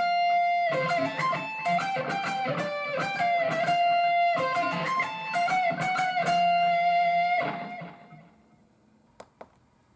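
Electric guitar played through a BOSS eBand JS-10 amp: a lead line of single notes with a long held note, stopping about seven and a half seconds in and dying away. Two short clicks follow near the end.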